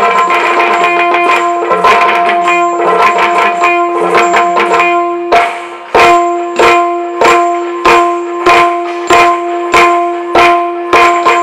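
Yakshagana drum accompaniment: chande drum struck with sticks and maddale, over a steady drone. The first half is dense, rolling drumming; from about halfway it settles into strong, even strokes, a little more than one and a half a second.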